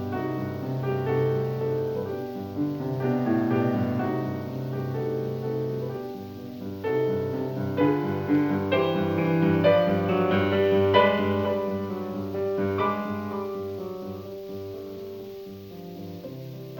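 Background piano music: a solo piano piece with a run of notes that swells in the middle and fades toward the end.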